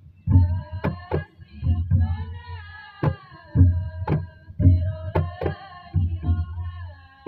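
Live traditional dance music played on hand drums. Deep booming beats alternate with sharp slap strokes in an uneven rhythm, under a melody line that steps up and down.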